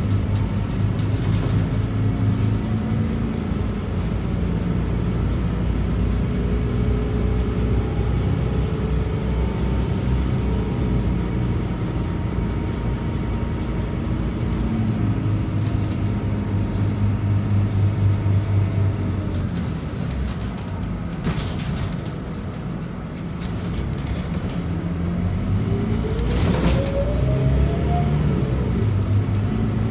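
Scania DC9 nine-litre six-cylinder diesel of a Scania K94UB bus running under way, heard from inside the bus, with a ZF five-speed automatic gearbox. It eases off past the middle, a couple of short clunks sound, and then it picks up again with a short rising whine near the end.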